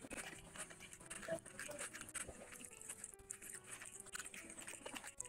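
Close-up eating sounds of a meal taken by hand: fingers working rice and chicken curry on the plate, then chewing with many small, wet mouth clicks.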